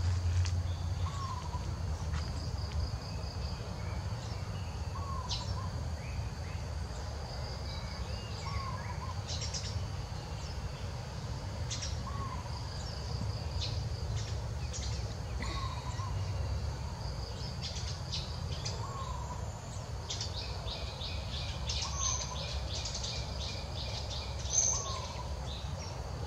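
Birds and insects: a short bird note repeating about every three and a half seconds over a steady high insect buzz, with a fast run of insect ticks near the end, over a low rumble.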